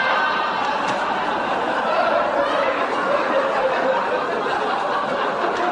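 Many people laughing and talking at once, a steady mass of mixed voices and chuckles.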